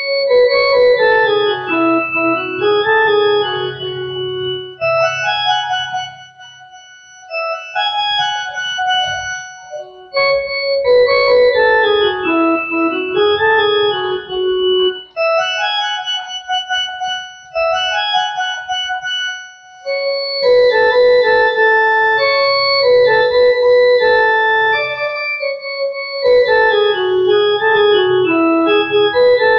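A Casio CTK-6300 electronic keyboard playing a Chhattisgarhi song melody by hand, in phrases a few seconds long with short pauses between them and a low held note sounding under some phrases.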